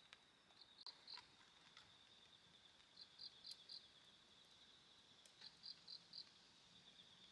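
Faint chirping of crickets or similar autumn insects: a steady high trill with groups of three or four louder chirps every two to three seconds. A few scattered sharp clicks.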